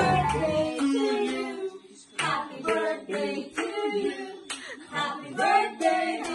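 Voices singing together with hand clapping in rhythm, about two claps a second, the clapping starting about two seconds in.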